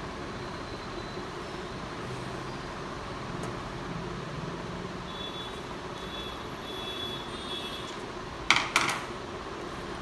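Steady background hum and hiss, with two sharp knocks about a third of a second apart near the end.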